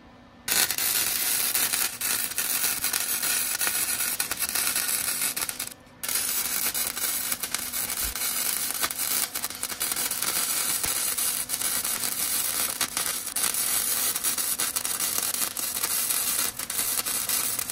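Wire-feed welder arc crackling steadily as a bead is run on a steel truck bumper. It starts about half a second in, stops briefly near six seconds, then starts again.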